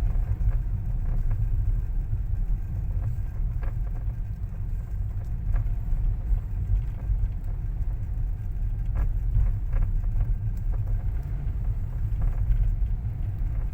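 Steady low rumble of a car in motion heard from inside the cabin, with faint scattered clicks and knocks from the steering column.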